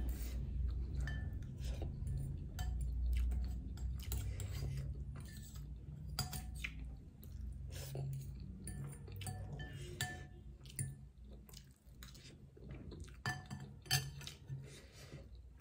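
Metal fork and spoon clinking and scraping against a glass bowl of ramen in many short, irregular taps, with chewing in between; the loudest clinks come near the end.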